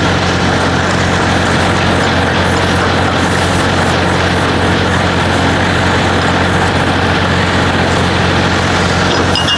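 Semi truck's diesel engine idling nearby: a steady low hum under a broad mechanical noise that keeps the same level throughout.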